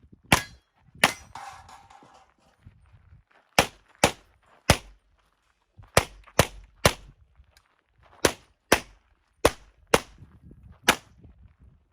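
Handgun shots fired in quick groups of two or three, about thirteen sharp cracks in all, with a brief metallic ring after the second shot.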